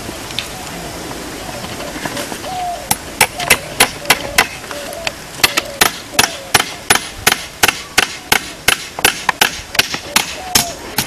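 A hammer striking a metal clamp again and again to fix the trip alarm's switch board to a tree trunk. The sharp, even blows begin about three seconds in and run at roughly two to three a second, with one short pause.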